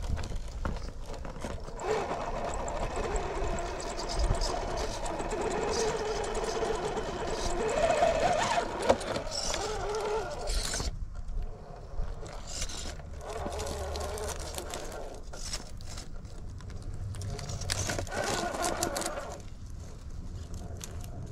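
Traxxas TRX4 Sport RC rock crawler driven by a Fusion SE 1800KV brushless motor, its motor and gear drivetrain whirring in stop-start stretches as it climbs rock, the pitch rising and falling with the throttle. Tyres and chassis click and scrape on the stone, with one sharp knock about nine seconds in.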